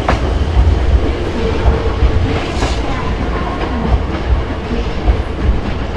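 Hankyu electric commuter train running along a station platform: a steady heavy low rumble of wheels and motors, with a sharp click right at the start.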